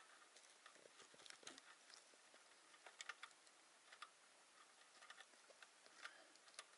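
Faint, irregular small clicks and scrapes of hands working inside a wooden marten-trap box fixed to a tree, with the sharpest clicks around three seconds in and again near the end.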